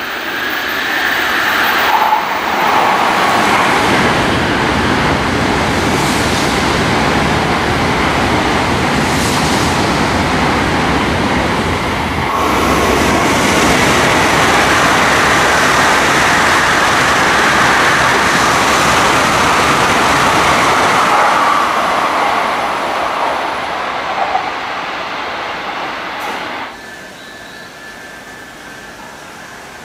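A Tokaido Shinkansen bullet train coming out of a tunnel and running through the station: a loud, steady rush of wheels on rail and air that builds in the first couple of seconds. It drops away suddenly near the end to a quieter background.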